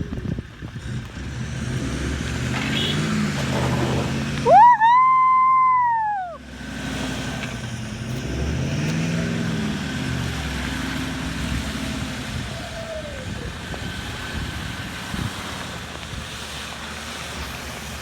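Toyota LandCruiser 79's V8 turbo diesel revving under load during a recovery pull. About five seconds in, a loud turbo whistle starts suddenly, holds for about a second and a half, then falls away; after it the engine keeps running and revving.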